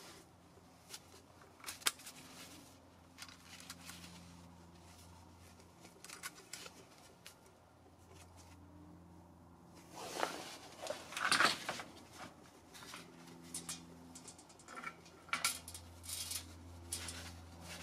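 Small metal clicks and handling noise as a steel bracket and its bolt and nut are fitted to a steel MOLLE panel with gloved hands, with a louder burst of clattering about ten seconds in. A low steady hum runs underneath.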